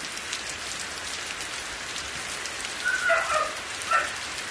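Heavy rain falling steadily on waterlogged ground: a dense, even hiss flecked with the ticks of single drops. An animal calls twice above the rain, briefly, about three and four seconds in.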